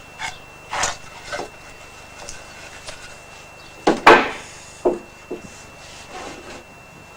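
Wooden parts being handled: a few separate knocks and scrapes of wood against wood, the loudest a scraping clunk about four seconds in. No saw is running.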